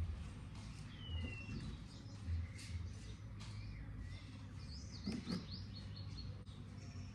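Birds chirping: a few scattered short calls, including a falling whistle about a second in and a quick run of chirps around five to six seconds in.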